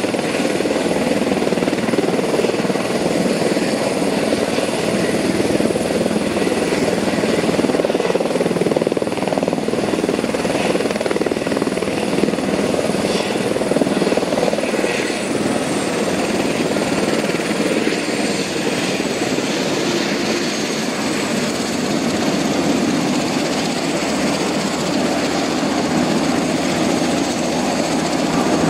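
Airbus EC130 B4 helicopter on the ground at idle after landing: a steady turbine whine under the whir of the turning main rotor and Fenestron tail rotor. A high whine sags a little in pitch past the middle.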